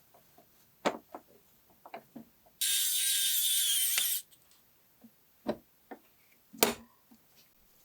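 Small handheld power tool motor running in one short burst of about a second and a half, its pitch sagging slightly. Sharp clicks and taps of small parts and tools being handled come before and after it, the loudest a single knock near the end.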